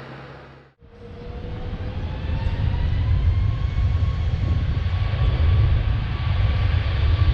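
Jet airliner engines spooling up, a low rumble growing louder with a whine rising slowly in pitch, typical of an airliner applying thrust for takeoff. It comes in abruptly about a second in.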